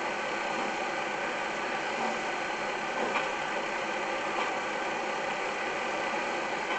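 Steady running noise of a passenger train ride, with a few faint clicks.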